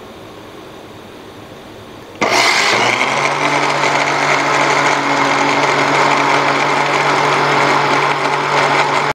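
Countertop electric blender switched on about two seconds in and running steadily, a loud whir over a constant low hum, as it blends yogurt and milk into lassi.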